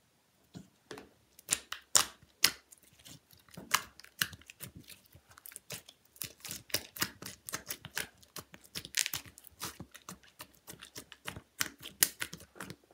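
Slime being worked by hand, crackling with irregular sharp clicks and pops that start about half a second in and keep going thickly.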